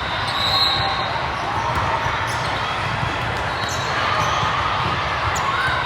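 Busy volleyball hall din: volleyballs being struck and bouncing on a hard court, a few short knocks scattered through a steady wash of crowd voices.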